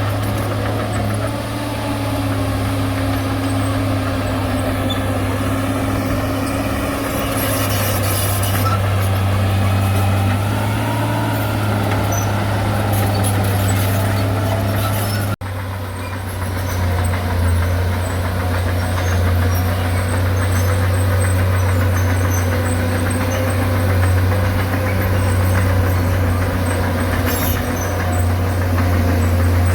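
Bulldozer's diesel engine running steadily with a deep hum, cutting out for an instant about halfway through before carrying on.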